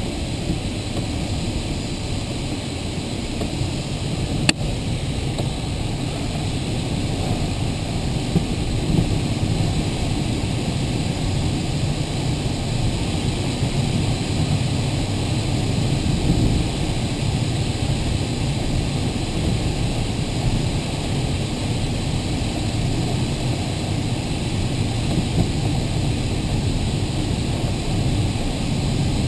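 Steady rush of airflow over the canopy of an LS8-18 glider in flight, heard from inside the cockpit as it comes in low to land, with one sharp click about four and a half seconds in.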